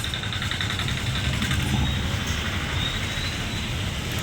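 Steady low mechanical hum with a fine, fast, even rattle higher up, over a continuous background noise.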